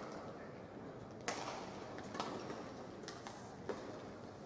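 Badminton hall ambience: a low steady background with four sharp clicks, each less than a second after the last.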